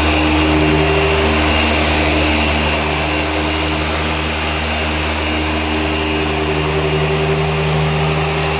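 Small handheld electric power tool's motor running steadily: a low hum with a faint high whine.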